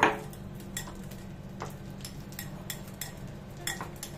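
A utensil knocking, scraping and clinking against a bowl as butter is beaten soft in it: irregular clicks and knocks, the sharpest one right at the start.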